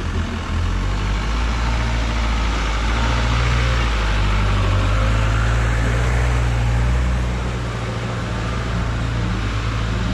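Motorcycle engine running steadily under wind and road noise while riding, a little louder in the middle and easing off about eight seconds in.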